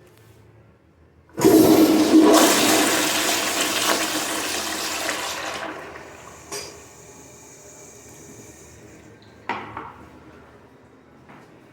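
American Standard Cadet pressure-assist toilet flushing: a sudden loud blast of rushing water about a second and a half in, fading over about four seconds. A quieter hiss follows as the tank refills, with two sharp knocks.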